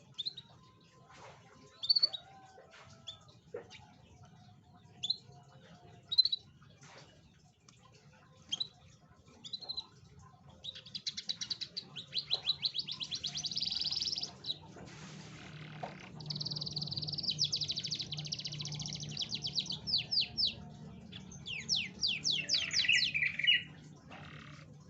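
Domestic canary singing: scattered single chirps at first, then long, fast, high trills lasting a few seconds each, the last one a quick run of falling notes.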